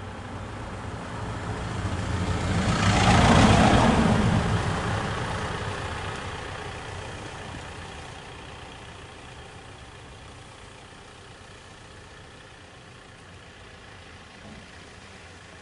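A motor vehicle drives past close by: its engine and tyre noise swell to a peak about three seconds in, then fade to a steady low engine hum.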